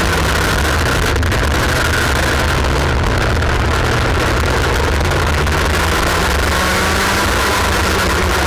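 IAME X30 Junior 125cc two-stroke kart engine running hard on track, heard onboard, with a loud, steady, high-pitched drone that shifts only slightly in pitch through the corners.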